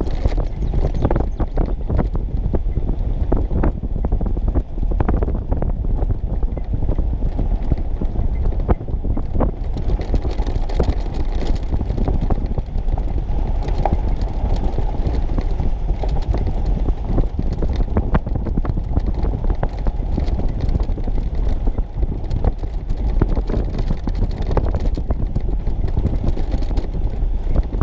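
A vehicle driving over a rough gravel rail-bed trail: a steady rumble of engine and tyres, with frequent knocks and rattles from the bumps.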